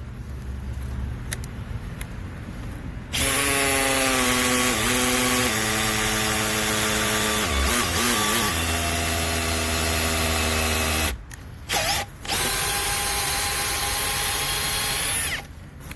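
Makita XPH07 brushless cordless hammer drill in hammer-drill mode with a 5/8-inch bit, drilling in two long runs: one starting about three seconds in, and another from about twelve seconds after a brief stop and a short blip of the trigger.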